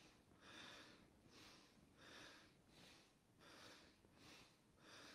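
Faint, rhythmic breathing, a quick in-breath and out-breath about every two thirds of a second, paced to a kneeling yoga movement that rocks the spine forward and back.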